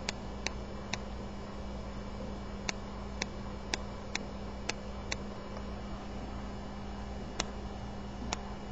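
Quartz chronograph's top pusher clicking as it is pressed repeatedly, about eleven sharp clicks in uneven groups over a steady low hum. Each press steps the tenth-of-a-second hand of the ETA G10 movement during recalibration, with the crown pulled out.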